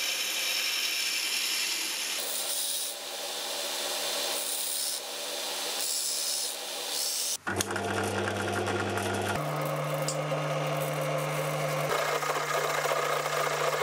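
Belt grinder running with a curved piece of metal held against its sanding belt, a steady rasping hiss that swells and eases as the piece is worked. About seven seconds in this gives way abruptly to a drill press motor humming steadily while its bit cuts into a hole in the steel blade; the hum steps up in pitch about two seconds later.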